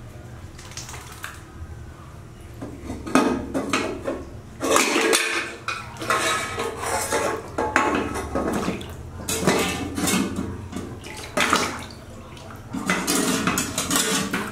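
Water splashing and sloshing in a plastic basin, with clattering knocks against the tub, as a baby macaque moves about and climbs on the rim during its bath. The sounds come in uneven bursts, starting about three seconds in.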